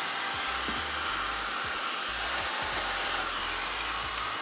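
Bosch Unlimited Series 6 cordless stick vacuum running steadily with its battery attached, a high, steady motor whine over the rush of air.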